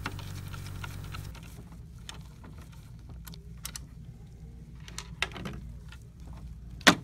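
Light plastic clicks and taps from the top cover of an HP OfficeJet 7612 printhead being taken off and handled, with one sharper click near the end.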